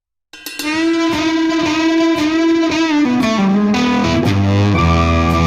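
Intro music with electric guitar, starting abruptly a third of a second in; held notes with vibrato, then a lower bass part joins about three seconds in.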